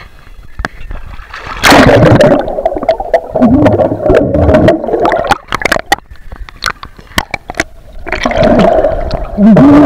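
Water in a swimming pool heard through a submerged camera: loud, muffled bubbling and gurgling with many sharp clicks and knocks, starting about two seconds in as the camera goes under. Muffled underwater voice sounds from the swimmer come through twice, around the middle and again near the end.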